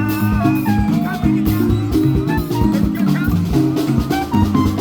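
Background music with a steady drum beat, bass and guitar, and a wavering melody line above.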